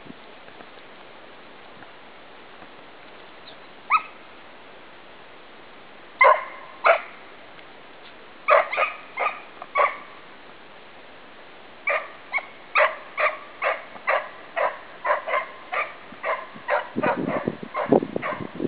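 Beagle baying on the track of a brown hare, the hound's cry that tells the hunter it is on the scent and driving. After a few seconds of quiet comes one short yelp, then a few spaced bays that settle into a steady run of bays, a little more than two a second.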